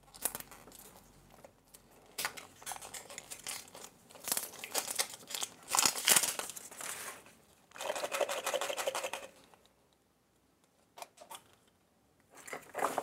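Packaging crinkling and tearing as a toy surprise egg is unwrapped and opened. It comes in several bursts, followed by a lull of a few seconds with a couple of clicks.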